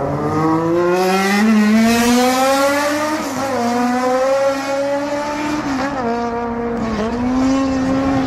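Motorcycle engine revving hard. Its pitch climbs over about two seconds, then holds high with a few brief dips.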